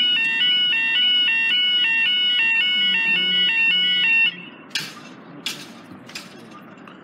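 Level crossing audible warning alarm sounding: a loud electronic multi-tone wail repeating about twice a second, which cuts off suddenly about four seconds in. It is followed by a much quieter stretch with a few sharp clicks.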